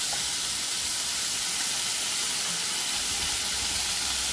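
Potatoes and onions sizzling as they fry in a little oil in a wok, a steady even hiss.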